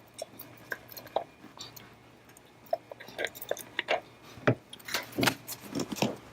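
Tiny screws being put back into a wireless card in an antenna panel: scattered small metal clicks and taps, sparse at first and coming faster from about halfway.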